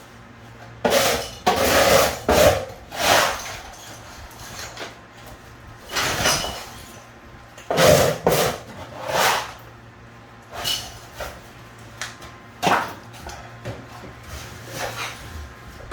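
Irregular knocks and scrapes of hand tools on tile and debris during bathroom tile demolition, with a faint steady low hum underneath.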